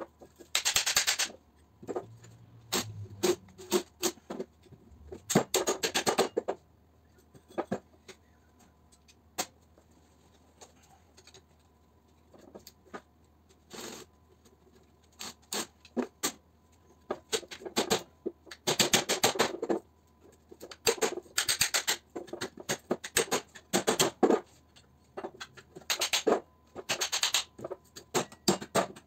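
Metal clanks and taps from an electric motor being dismantled on a steel-topped bench: hammer blows on the motor's end cap and a cordless driver on its bolts, in dense rattling bursts of about a second each, with scattered single knocks and clinks of tools and parts between them.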